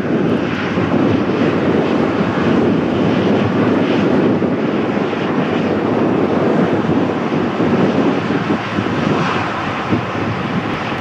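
Boeing 737 jet taxiing close by, its twin turbofan engines running at low taxi thrust with a steady rushing hum.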